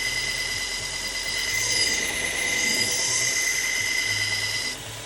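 Belt knife sharpener with a 200-grit 3M Trizact abrasive belt grinding a steel pocket-knife blade: a steady high-pitched whining squeal over a hiss. The grinding cuts off sharply near the end.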